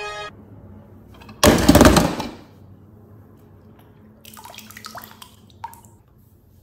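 A loud splash in a shallow inflatable kiddie pool, then fainter water sloshing and light clicks of plastic as a hand reaches into the water and lifts out a die-cast toy car.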